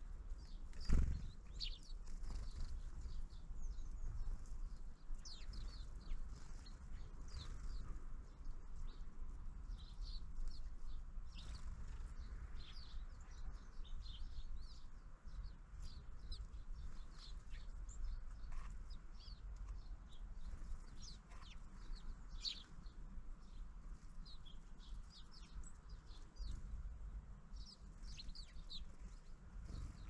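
Small birds at a feeder giving many short, high chirps and calls, with a single thump about a second in.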